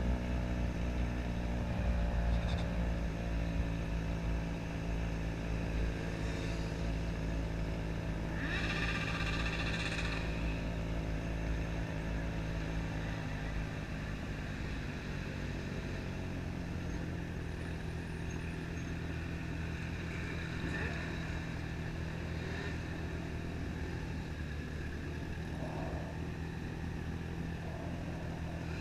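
Yamaha XJ6's inline-four motorcycle engine running steadily at low revs, with a low rumble of wind on the microphone in the first half. A brief high-pitched sound comes in about nine seconds in.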